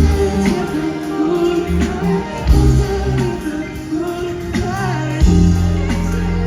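Live pop band music with a sustained bass line, drum hits and a wavering melody line; the bass gets heavier about five seconds in.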